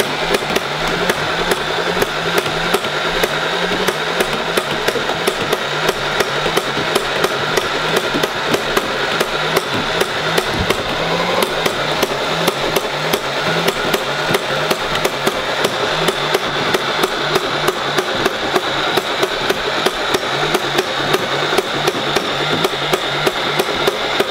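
Nerf Rival Nemesis MXVII-10K motorized blaster firing foam balls in one long full-auto burst. A rapid, even clatter of shots, several a second, runs over the steady whir of its flywheel motors.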